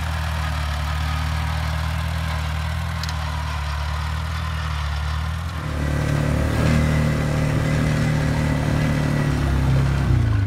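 Farmall Cub's four-cylinder flathead engine running steadily while it pulls a plow. A little over halfway through it gives way to a different, slightly louder engine, an ATV running.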